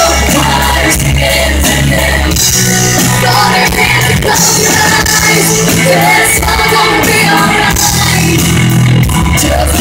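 Live band music played loud through a stage sound system: a woman singing lead over electric guitar, bass, keyboard and drums.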